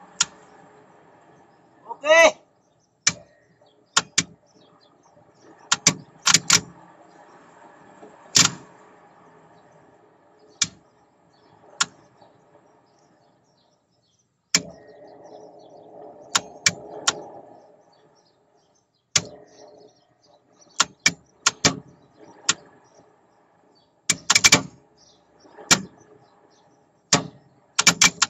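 Tower crane cab while the crane slews: a faint steady machine hum with sharp clicks and knocks at irregular intervals, and a short pitched sound about two seconds in.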